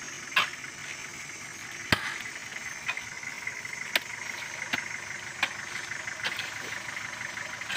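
Hoes chopping into wet clay soil: about seven sharp strikes, roughly one a second, over the steady running of an idling 4x4 engine.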